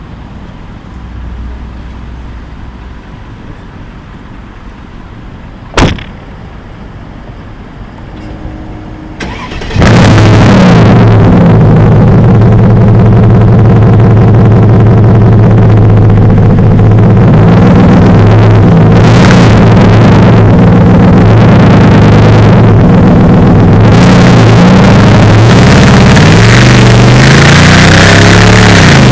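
Mercedes-Benz SLR McLaren's supercharged V8, breathing through an aftermarket 'Devil Sports' exhaust, starting up abruptly about ten seconds in after a quiet stretch with one sharp click. It then runs loud and steady, with a few rises in revs in the second half.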